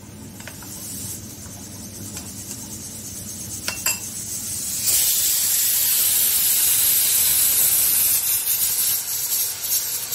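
A spoon clinks a few times against a ceramic bowl while custard powder is stirred into cold milk. About five seconds in a loud, steady hiss starts suddenly: the pressure cooker venting steam as the dal inside boils.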